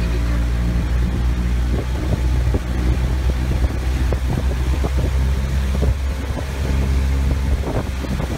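A boat's engine running steadily as it travels along a canal, with a low drone and irregular short knocks over it.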